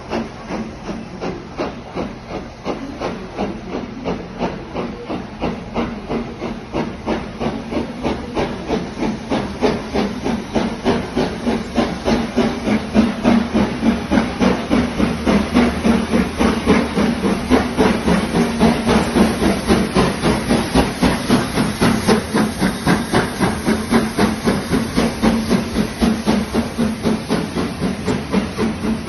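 Steam locomotive working hard as it approaches and passes, its exhaust chuffing in a fast, even rhythm over a steady steam hiss. The beats grow louder over the first dozen seconds as it draws near.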